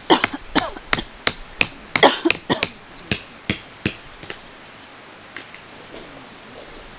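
A tent peg being hammered into gravel ground to anchor a windscreen pole: about a dozen sharp strikes in quick succession, a few of them ringing briefly. The strikes stop after about four seconds.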